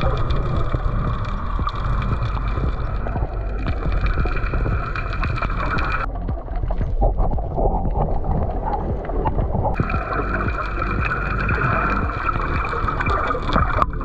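Boat under way: a steady motor hum over rushing water, with wind rumbling on the microphone. The higher part of the hum drops out for a few seconds midway, then returns.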